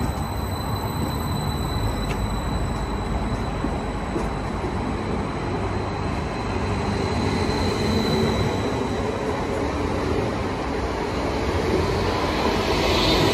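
Stadler FLIRT electric multiple unit moving past along a station platform: a steady rumble of wheels on rail with a thin high tone over it, growing louder near the end.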